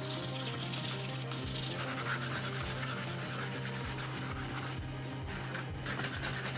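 Sanding: abrasive worked steadily over a surface, a continuous rasping hiss over a constant low hum, with background music underneath.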